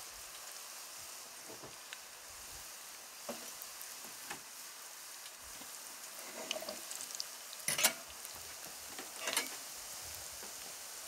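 Ciuriși dough pieces frying in hot oil in a frying pan, a steady sizzle. A few short sharp pops or knocks cut through it, the loudest about eight seconds in.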